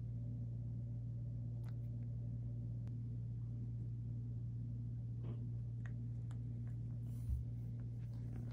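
A steady low hum, with a few faint clicks and a soft thump about seven seconds in.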